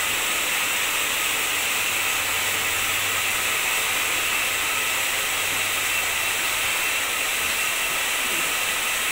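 Handheld hair dryer blowing steadily: a constant airy hiss with a thin high whine, drying wet hair.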